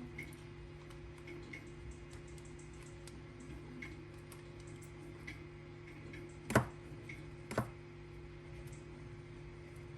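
Light ticks and small taps of wires and tools being handled while wires are soldered together, with two sharper clicks about a second apart just past the middle, over a steady low hum.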